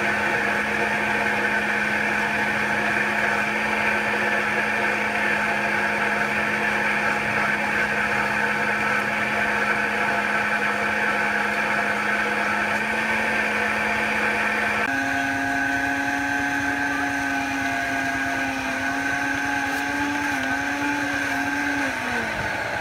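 Electric countertop blenders whirring steadily as they mix fruit shakes, a constant motor whine. About two-thirds through, the whine steps up to a higher pitch, wavers, then winds down near the end as a blender is switched off.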